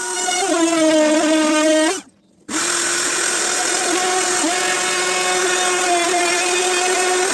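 Einhell TP-RO 18 Li BL cordless brushless router running at full speed, a steady high whine with a rushing cut underneath as it routes hard steamed beech. It cuts out abruptly about two seconds in and is running again half a second later.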